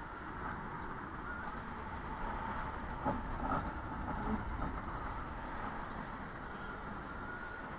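Steady rushing air noise on a descending balloon gondola's onboard camera microphone, with a few faint knocks about three to four and a half seconds in.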